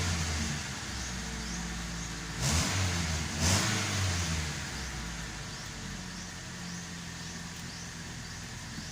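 Mitsubishi Lancer's 4G13 four-cylinder engine revved briefly twice, about two and a half and three and a half seconds in, then settling back to a steady idle, an idle the video calls rough.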